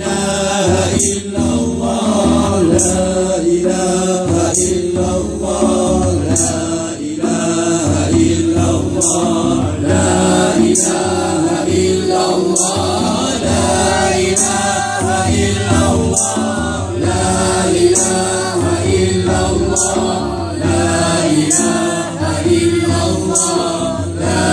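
A group of men singing a Malay devotional song (nasyid) together in a chant-like choir, with hand drums keeping a regular beat of sharp strikes.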